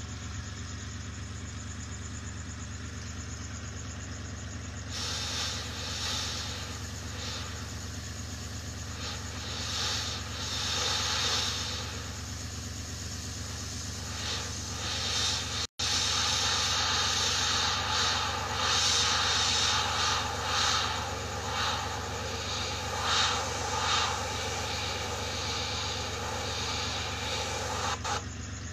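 PS-270 airbrush spraying paint in short, uneven bursts of hiss as the trigger is worked, starting about five seconds in and getting louder in the second half, over a steady low hum.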